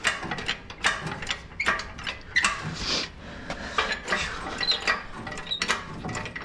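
Irregular metallic clicks and clanks from an engine hoist and its lifting chains as the engine hanging from them is shifted.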